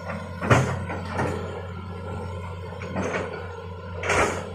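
Hitachi hydraulic excavator's diesel engine running with a steady low hum, broken four times by short, sharp cracking knocks as the machine works through felled brush.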